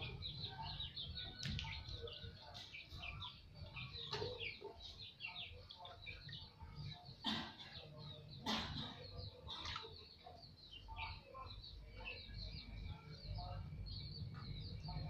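Chickens clucking and small birds chirping, faint, with a few sharp knocks about a second and a half in and twice between seven and nine seconds in.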